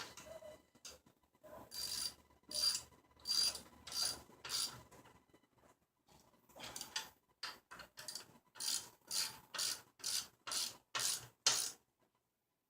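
Hand ratchet wrench clicking back and forth in short strokes, roughly two a second, as bolts are tightened. It comes in two runs with a brief pause between them.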